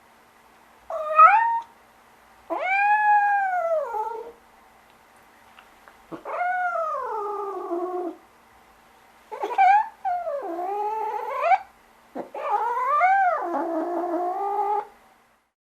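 A domestic animal calling six times in drawn-out, meow-like calls, each rising and then falling in pitch, the first and fourth short and the rest long.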